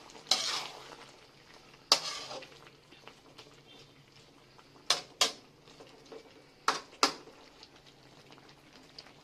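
A spatula scrapes and knocks against a metal pan while stirring a chunky pork stew. There are two scraping strokes in the first two seconds, then two pairs of sharp clinks about five and seven seconds in.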